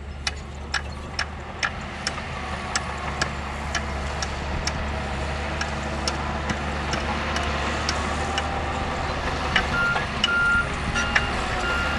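Heavy diesel earthmoving machinery running steadily, with sharp metallic clanks about twice a second. A reversing alarm starts beeping about ten seconds in.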